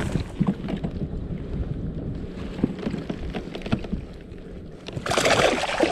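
Knocks and rumble of handling on a fishing kayak, with wind on the microphone, then a loud burst of splashing water about five seconds in.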